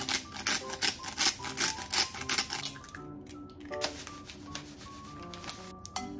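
Salt shaken from a shaker into a bowl of ground pork: a quick rattle of about five shakes a second that stops after about three seconds. Light background music plays throughout.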